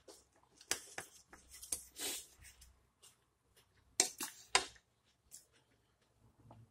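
Knife and fork clicking and scraping against a plate as a huarache is cut up, a series of short sharp clicks with a quick cluster about four seconds in.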